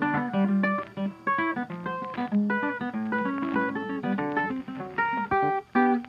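Background music: plucked acoustic guitar playing a quick run of notes.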